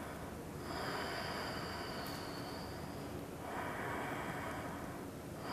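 A woman's slow, deep breathing close to the microphone while she holds a seated yoga twist: two long breaths, with the next one starting at the end.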